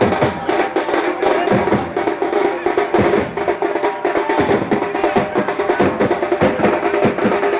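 Music with fast drumming: many quick drum strikes under a steady held melody.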